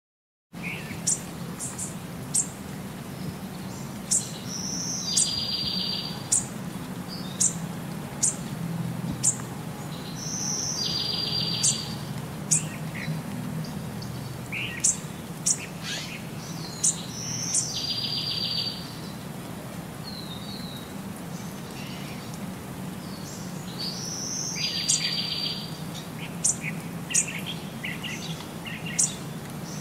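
Small birds chirping: short, high chirps about once a second, with a buzzy trill about every six or seven seconds, over a low steady hum.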